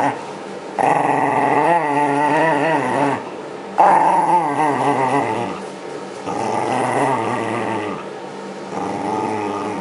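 Shiba Inu growling at a reaching hand in four long bouts with short breaks between them. The growl's pitch wavers up and down within each bout.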